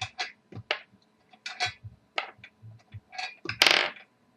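Bingo marbles clicking against each other and the bingo cage as marbles are drawn: a run of irregular short clicks, with one louder clatter about three and a half seconds in.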